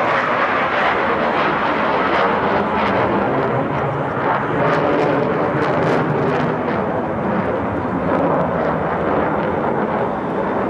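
Loud, steady jet noise of an F-14 Tomcat fighter flying overhead on a low, high-speed pass.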